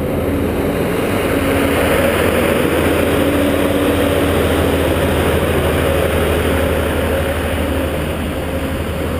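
Ice resurfacing machine's engine running as it drives past close by: a steady low drone that swells as it nears and eases a little as it moves away across the ice.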